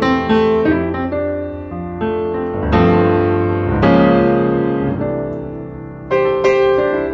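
Background piano music: unhurried chords and single notes, each struck and left to ring and fade, with fuller chords about three, four and six seconds in.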